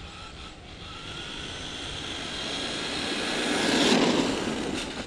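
Arrma Vorteks 2WD RC truck's electric motor whining over the hiss of its tyres on wet pavement. It grows louder as the truck drives up and passes close by about four seconds in, then fades.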